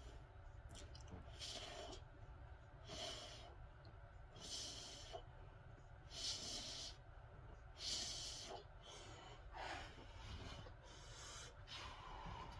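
A man breathing deeply and forcefully in a steady rhythm, about seven breaths, one every second and a half or so, as in a controlled breathing exercise.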